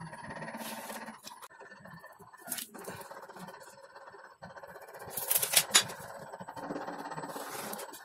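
Short scrapes and rubs of a metal straightedge, tape measure and hands on a plywood sheet as cut lines are marked out, the loudest cluster about five and a half seconds in, over a faint steady background.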